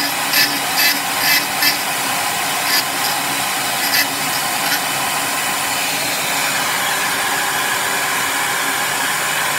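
Rotary tool (Dremel) with a fine bit cutting through a thin bridge in the DS1216 module's epoxy potting to sever the battery connection. Its bite comes in pulses about twice a second for the first couple of seconds, then now and again, over a steady high-speed motor whine.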